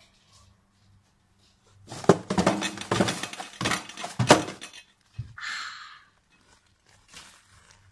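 Paper towel being grabbed and crumpled around a hand: a burst of crackling rustles about two seconds in, then a dull thump and a short papery hiss, with faint rustling near the end.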